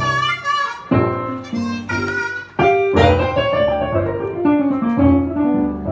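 Live blues: an amplified harmonica played cupped against a microphone, with a stage keyboard playing piano chords under it. About three seconds in, a long note slides up and back down.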